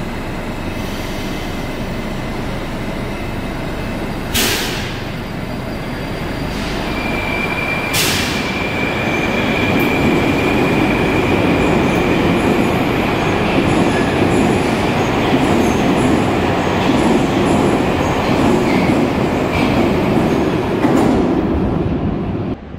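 Moscow Metro train running on the rails through a station. It grows louder about eight seconds in, with a steady high-pitched wheel squeal held through most of the middle. Two sharp clicks come around four and eight seconds in, and the sound cuts off suddenly just before the end.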